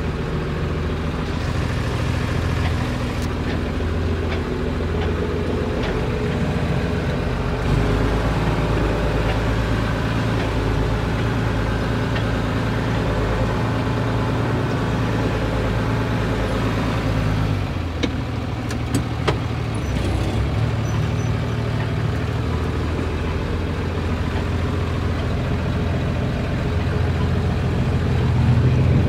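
John Deere 3350 tractor's diesel engine running steadily as the tractor drives across a field, heard from inside the cab. The engine note shifts a few seconds in and again about two-thirds of the way through, with a few light clicks around the second change.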